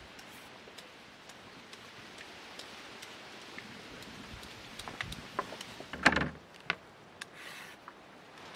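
Y-shaped hand peeler scraping a raw carrot: faint scattered scraping ticks, then a run of sharper clicks with a louder knock about six seconds in from handling the carrot and the plastic bowl or colander.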